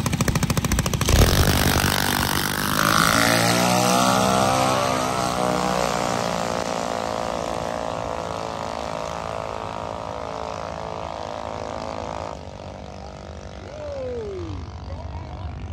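Junior dragsters' single-cylinder engines popping rapidly at the line, then going to full throttle at the launch about a second in and running hard down the track, the sound fading steadily with distance.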